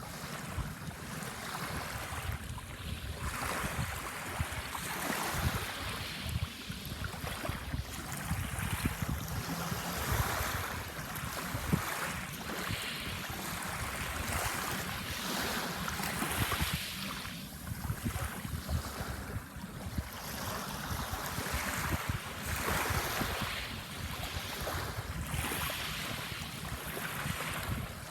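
Small sea waves washing onto a sandbar, swelling and falling back every few seconds. Under them runs a steady low rumble of wind on the microphone.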